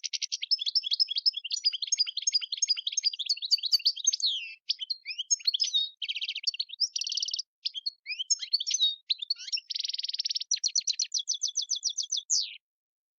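European goldfinch singing: a long, fast twittering song with rapid note runs and buzzy trills, stopping suddenly near the end.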